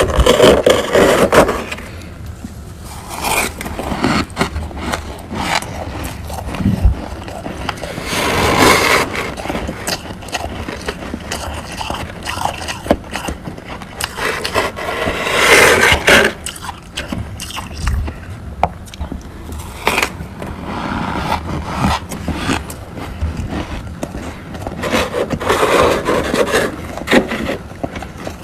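Crunchy frost being scraped and crunched close to the microphone: a dense crackling throughout, with louder crunching bursts every few seconds.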